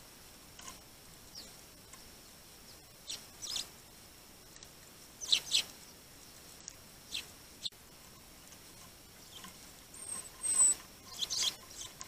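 Sparrows giving short, scattered chirps, loudest about five seconds in and again near the end, with a thin high whistle just after ten seconds.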